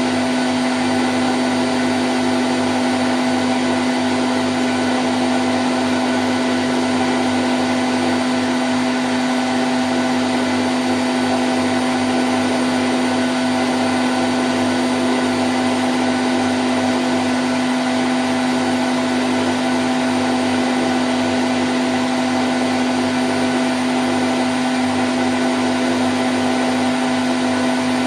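Candy Grand O' F106 washing machine on its spin cycle at 1000 rpm: a steady whirring hum with one strong constant tone, never changing in speed.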